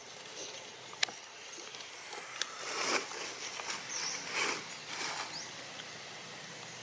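Dry leaves rustling and crackling in several short bursts, with a sharp click about a second in and a brief high chirp partway through.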